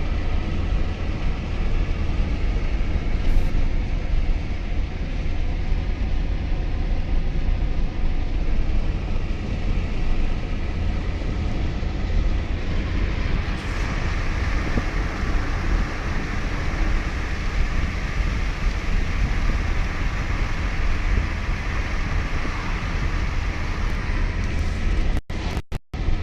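Steady noise of a car driving through a heavy thunderstorm downpour, with a deep rumble of road and wind noise under a hiss of rain. About halfway through, the rain hiss grows stronger. Near the end, the sound cuts out briefly a few times.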